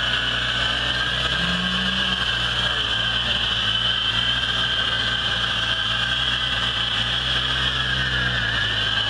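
Suzuki Samurai 4x4's engine running steadily at low revs as it crawls down a steep dirt bank, with a steady high whine above the engine note.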